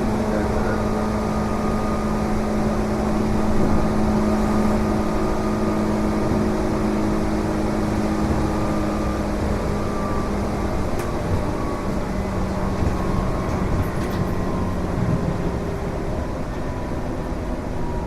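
Running noise heard from inside a Tobu 8000 series resistor-control electric train car in motion: a steady rumble with several humming tones that drop a little in pitch about two-thirds of the way through and again near the end.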